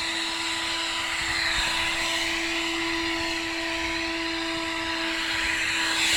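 Vacuum cleaner running steadily, a constant whine over a rushing hiss, used on a Siberian husky's coat.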